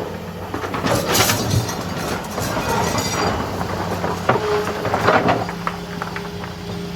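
Heavy-equipment diesel engine running steadily, with bursts of clattering and scraping about a second in and again around five seconds in.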